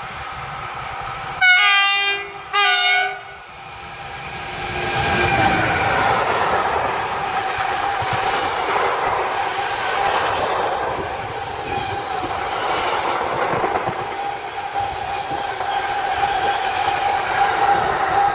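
Train horn sounding two short blasts, then the train passing close by: continuous rolling wheel noise on the rails with a steady high whine running through it.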